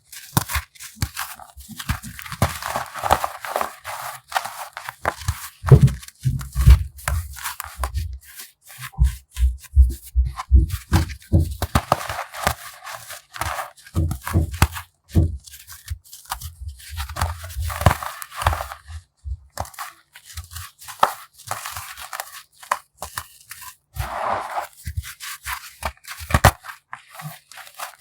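Dried baking soda chunks being crushed: dense runs of crisp crunching and crackling that come in bursts, with soft low thumps under several of them.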